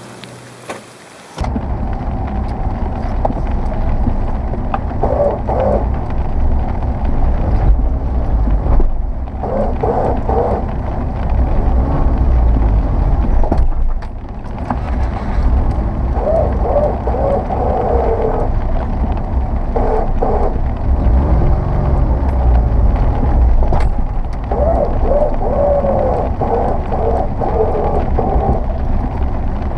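A first-generation Subaru Forester working a rough off-road track: a heavy, steady low rumble, with short whines that rise and fall several times.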